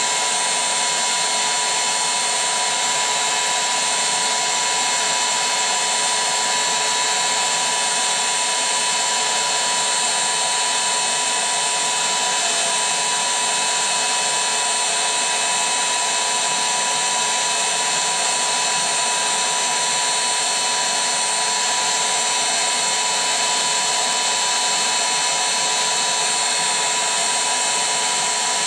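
Electric air pump running steadily, inflating an inflatable, with an even, high motor whine that does not change.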